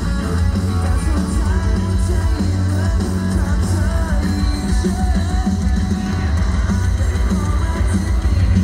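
Live rock band with a singer, played over a concert PA, with a heavy, continuous bass.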